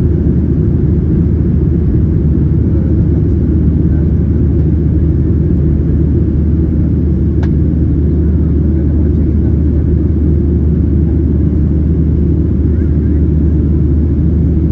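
Steady low roar in the cabin of a Boeing 737-700 climbing after takeoff: its CFM56-7B turbofan engines and the rush of air past the fuselage. A brief faint click about halfway through.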